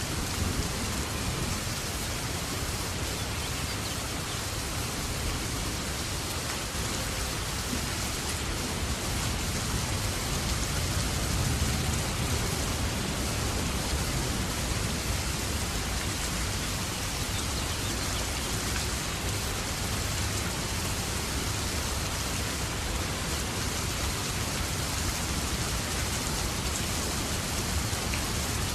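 Steady rain falling, an even hiss with a low rumble underneath, swelling slightly near the middle.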